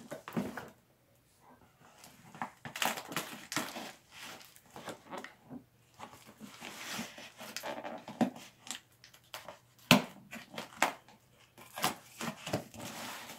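Cardboard box being cut and torn open by hand: irregular scraping, tearing and rustling of cardboard and packing tape, with a sharp knock just before ten seconds in.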